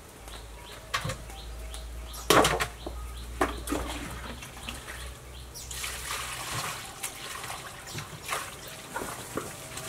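Water scooped and poured over meat pieces in a metal basin, splashing, with a few sharp knocks of the basin and scoop against the table; the loudest knock comes about two seconds in.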